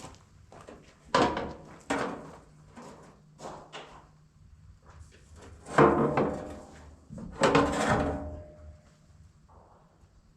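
Metal clanking: four loud knocks and bangs from steel parts being handled on a combine, with smaller knocks between them. The last bang rings on briefly.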